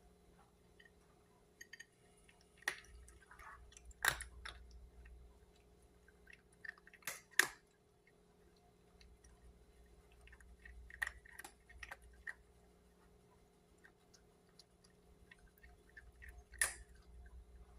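Domestic cat chewing its food, with scattered, irregular crunches and clicks, the loudest about 4, 7 and 16 seconds in. A faint steady hum runs underneath.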